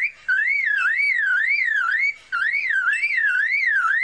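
Superb lyrebird mimicking a car alarm: a loud whistled wail sweeping up and down about two and a half times a second, in repeated phrases with brief breaks just after the start and about halfway through.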